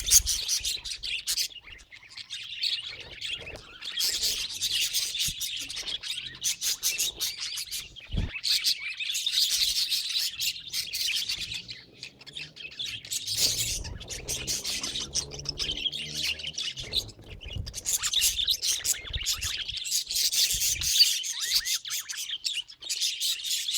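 Budgerigars chattering and warbling in long bursts of fast, high chirps with short lulls between. A single low thump about eight seconds in.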